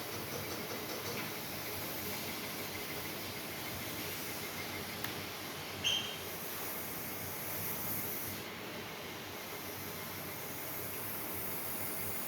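Steady hiss, with a small click about five seconds in and a short high chirp about a second later.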